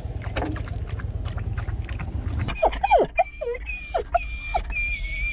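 A dog laps water from a metal bowl in quick clicks, then, about halfway through, a dog whines in a run of high-pitched whimpers that slide up and down in pitch.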